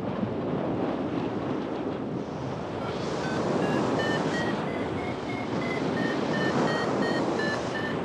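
Wind rushing loudly over the microphone. From about three seconds in, a string of short electronic beeps sounds, stepping up in pitch and then holding high.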